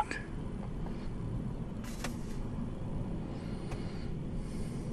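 Steady low rumble of a car heard from inside its cabin, with a single sharp click about two seconds in.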